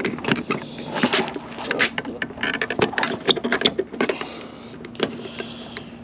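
Rapid, irregular clicks and knocks of a chrome-and-plastic exterior door handle being pushed and worked into its mount on a 2007 Cadillac Escalade door, its plastic tabs not yet seating.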